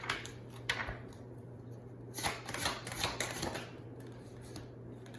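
Tarot cards being shuffled and handled: a brief rustle about a second in, then a longer run of papery riffling and flicking. A faint steady low hum runs underneath.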